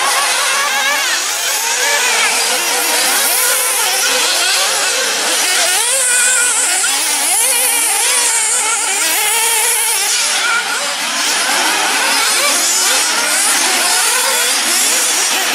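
Several 1/8-scale nitro off-road RC buggies racing. Their small glow-fuel engines give a high-pitched whine that revs up and down constantly, many engines overlapping.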